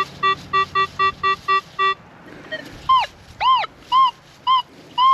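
Metal detector giving target tones: short, evenly spaced beeps about four a second for two seconds, then four rising-and-falling chirps, then a steady held tone at the very end. The target reads a solid 16 and is deep, a number he says could be iron, tin foil or gold.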